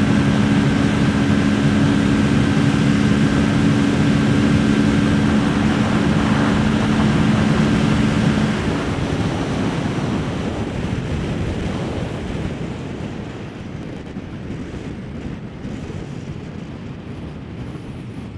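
2023 Kawasaki Ninja 650's parallel-twin engine held at a steady high note near top speed, under heavy wind rush. About eight seconds in the throttle is closed: the engine note drops away and the wind and road noise fade as the bike slows down.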